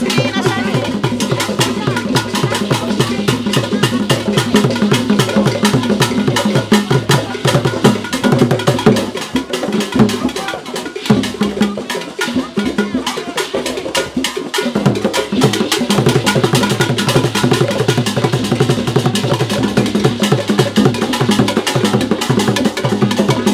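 An ensemble of traditional barrel hand drums playing a fast, continuous dance rhythm of dense, rapid strokes, with sharp clicking wood-like hits among them.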